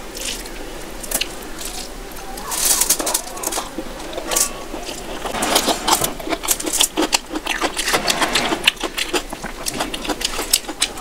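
Close-miked eating by hand: fingers squishing rice with curry gravy, then wet chewing and lip smacks. The smacks come as a quick run of sharp clicks from about halfway on.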